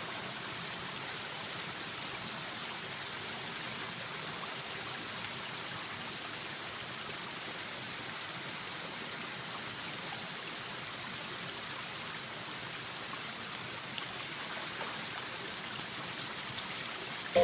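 Waterfall's water rushing, a steady even noise.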